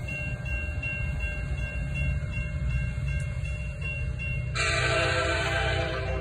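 Nathan K5LA five-chime air horn on an EMD F59PHI diesel locomotive, sounding one long blast about four and a half seconds in, over a steady low rumble.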